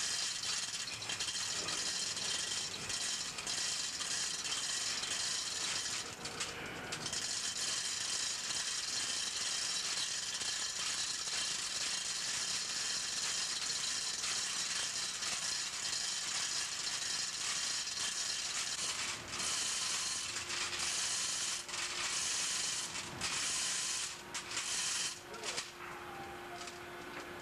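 Continuous mechanical rattling with a dense hiss, ratchet-like, from tools or machinery during main-bearing work on a large two-stroke marine engine, with brief breaks about six seconds in and several more near the end.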